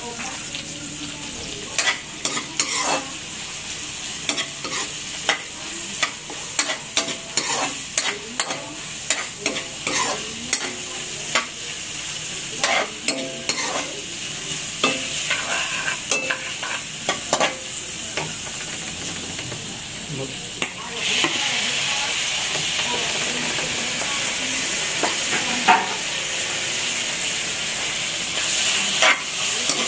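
Sliced onions sizzling in hot oil in an aluminium wok while a spatula stirs and scrapes them, with many short scraping strokes against the pan. About twenty seconds in the sizzle jumps louder and steadier as raw sliced pork goes into the hot pan.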